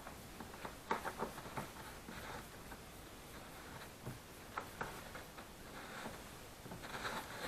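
Faint scattered light clicks and scrapes of the fuel pump tightening ring being lined up and seated by hand on a snowmobile fuel tank.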